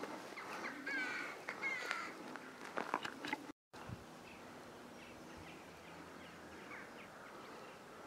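Footsteps crunching on a gravel yard with birds calling outdoors. The sound cuts out briefly about three and a half seconds in, and after that only a quieter outdoor background with a few faint bird chirps remains.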